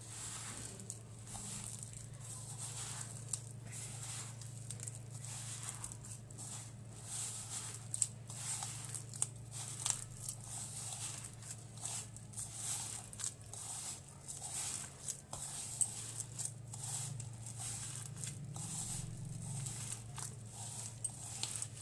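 A hand squeezing and kneading soft mashed ripe banana into flour and sugar: a run of irregular soft squelching and rustling strokes, over a steady low hum.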